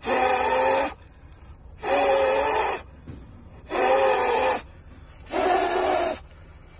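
A person blowing hard through a disposable face mask at a lighter flame: four long blows of just under a second each, evenly spaced, with some voice in each breath.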